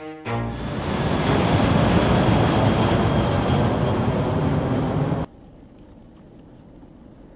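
Loud, steady vehicle or aircraft engine noise that builds up just after the start and cuts off abruptly about five seconds in, leaving a faint low hiss. A brief music chord fades out at the very start.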